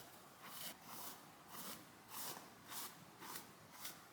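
Hairbrush strokes through long hair, a faint soft swish repeating about twice a second as the hair is brushed out and detangled.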